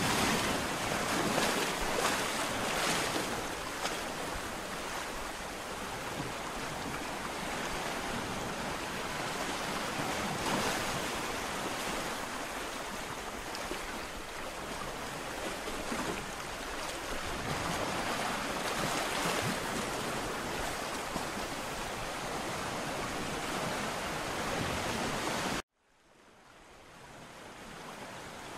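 Ocean surf: waves breaking and washing ashore in a steady rush that swells and eases every several seconds. Near the end the sound cuts out suddenly and fades back in.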